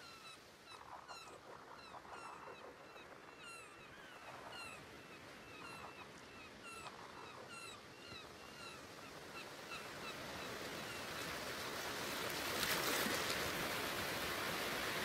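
Electroacoustic soundtrack: short bird-like chirping calls repeat about twice a second over a faint hiss. From about halfway a rushing, water-like noise swells up and becomes the loudest sound near the end.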